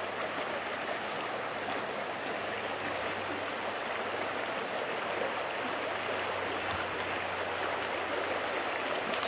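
Small rocky brook flowing over stones, a steady rush of running water.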